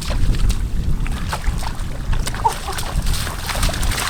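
Water sloshing and splashing, with scattered short clicks and a heavy low rumble of wind on the microphone.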